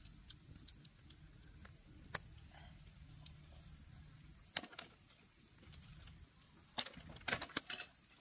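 Wood fire crackling under a spit-roasting crocodile: a low steady rumble with scattered sharp pops, several in quick succession near the end.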